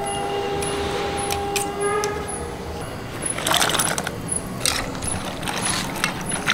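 Stainless-steel kitchen bowls clinking and clattering as cut beans are handled in water in a steel bowl, in short bursts from about halfway in. A faint high ticking repeats about three times a second, and a steady tone runs through the first two seconds and then stops.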